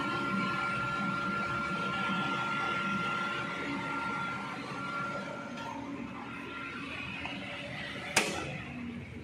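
Steady hum and whine of a CNC machine's electrical cabinet, with a steady high tone, fading about five seconds in. Near the end, one sharp clack as the rotary main power switch is turned.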